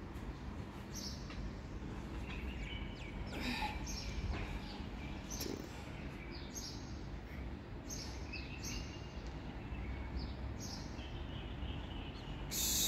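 Small birds chirping repeatedly over a steady low background rumble, with a loud hiss starting near the end.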